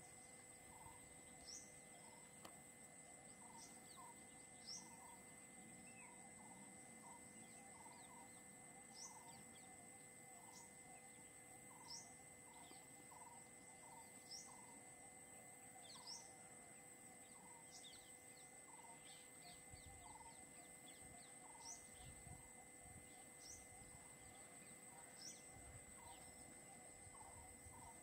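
Faint wild ambience: a steady high insect buzz under repeated bird calls. One short note repeats about once a second, and high, quickly falling chirps come every second or two.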